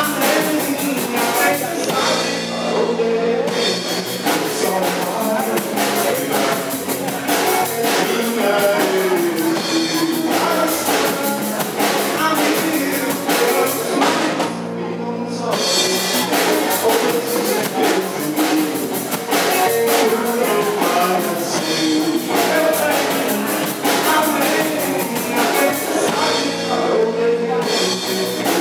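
Live rock band playing: drum kit keeping a steady beat under electric guitars and bass guitar, with a male lead vocal. The cymbals drop out briefly about halfway through.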